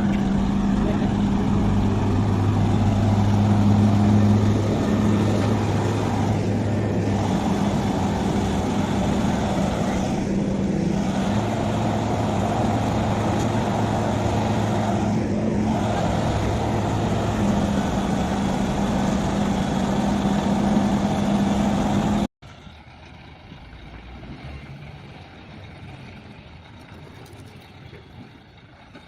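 A motor running steadily with a low, even hum, cutting off suddenly about 22 seconds in, followed by a much quieter background.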